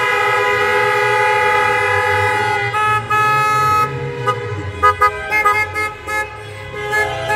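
Many car horns held on together in a steady chord of overlapping tones. After about three seconds it thins into scattered short toots. These are cars sounding their horns to mark the close of the show.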